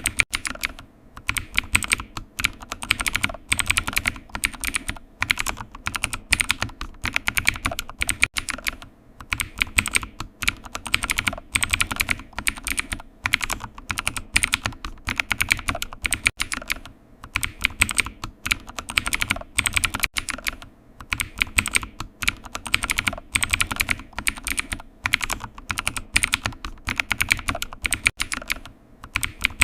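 Computer keyboard typing: a rapid, continuous stream of key clicks in bursts, with short pauses every few seconds.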